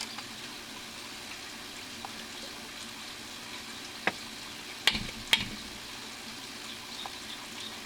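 Steady hiss of running, trickling water, with a few sharp clicks and knocks from plastic PVC pipe fittings being handled: one light knock about four seconds in, then two louder ones about half a second apart near the five-second mark.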